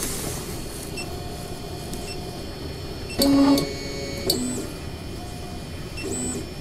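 Geeetech E180 3D printer's X-axis stepper motor buzzing in short pitched spurts as it tries to move and fails, the loudest about three seconds in. The owner's guess is a bad X stepper motor.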